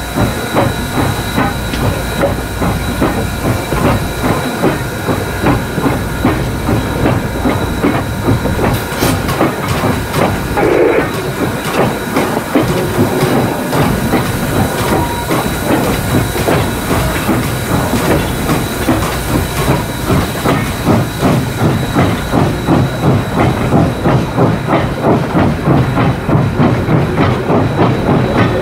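Southern Railway 2-8-0 Consolidation #630 steam locomotive working under way: a steady beat of exhaust chuffs, roughly two a second, over a continuous hiss of steam.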